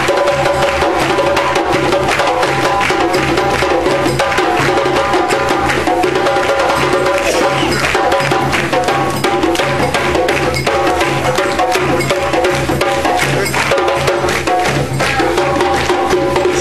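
Live music led by drums and percussion: dense, rapid strikes over held pitched notes, at a steady loud level.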